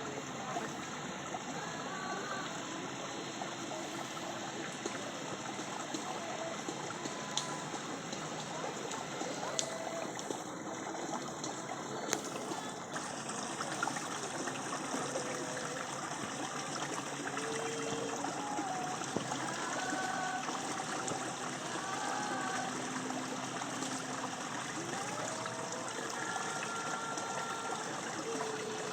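Steady rushing of running water, like a stream, with faint short calls or chirps scattered through it.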